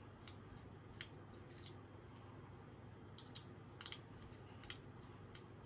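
Faint, irregular small clicks of a hex driver turning out a screw in a Bambu Lab X1 Carbon print head, the bit and screw ticking against the metal and plastic housing. The sharpest click comes about a second in.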